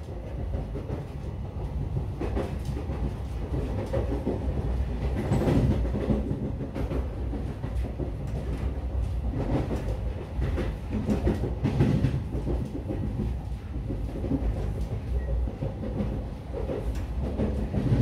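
Train running on rails: a steady low rumble with irregular clattering knocks of the wheels over the track.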